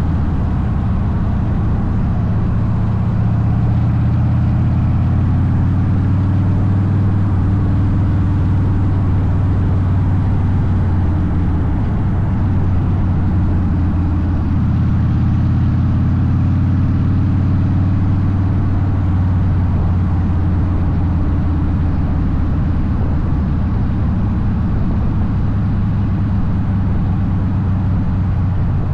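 Harley-Davidson Softail Deuce's V-twin running through Vance & Hines aftermarket exhaust while riding, a steady deep engine note. The note eases off briefly about halfway through and then picks back up.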